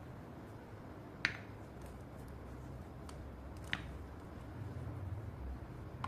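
A blade scraping and chipping at wet slate pencils, heard as two sharp snaps about two and a half seconds apart with a few faint ticks, over a steady low hum.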